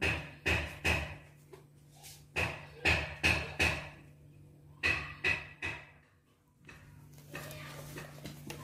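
Sharp knocks in three runs of three or four, about half a second apart, each with a short ring, over a low steady hum.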